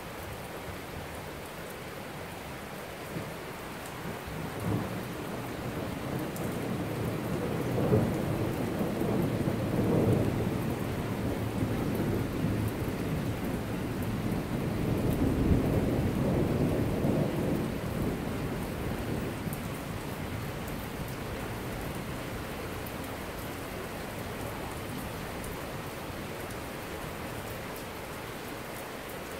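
Steady rain falling through a thunderstorm, with a long low roll of thunder. The thunder swells a few seconds in, is loudest through the middle and fades away over about twenty seconds.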